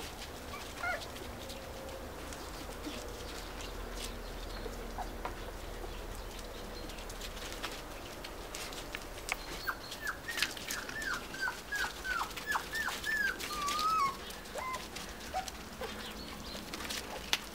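Finnish Lapphund puppy whimpering: a run of short, high squeaks that fall in pitch, about two a second, in the second half, ending in a longer wavering whine. Light scuffling and ticking of small feet on dry leaves runs underneath.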